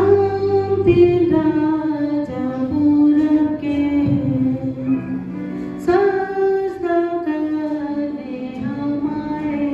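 A woman singing a slow melody over instrumental backing music, in two phrases, the second starting about six seconds in.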